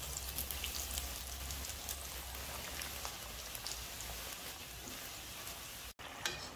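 Spring rolls deep-frying in hot oil in a frying pan: a steady sizzle with fine, rain-like crackling. The sound cuts out for an instant about six seconds in, then the sizzle carries on more faintly.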